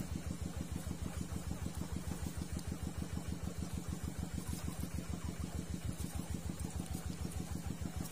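A small engine idling steadily, with an even low pulse of about eight beats a second.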